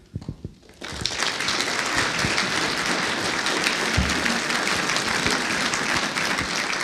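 Audience applauding, a dense patter of many hands that starts about a second in and carries on steadily.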